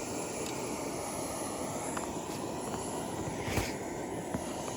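Isobutane canister camp stove burning steadily under a pot. A few light taps and one louder knock come a little past halfway.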